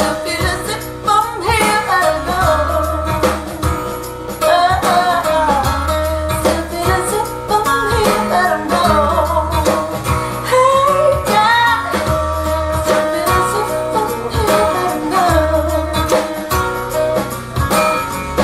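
A recorded song played back over a hi-fi loudspeaker system: a singer over guitar, with held bass notes that come and go every second or two.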